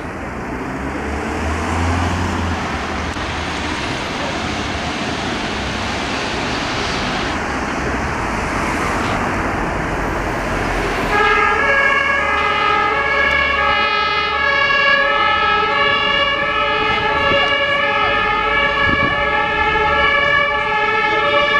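Street traffic and vehicle noise, then about halfway through an ambulance's two-tone siren (German Martinshorn) switches on, alternating between a high and a low tone in a steady rhythm.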